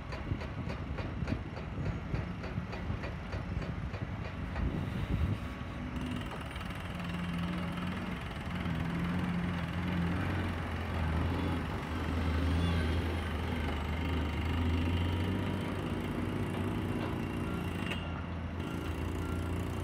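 JK CM358 crawler drill rig drilling into rock, its hammer knocking rapidly and evenly, over the steady hum of diesel machinery. From about six seconds in, the low engine hum comes to the fore.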